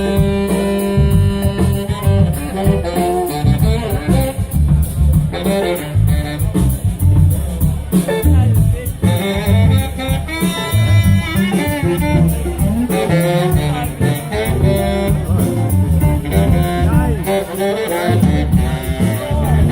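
Live blues band playing an instrumental passage: a lead wind instrument solos with held and bending notes over bass and drums.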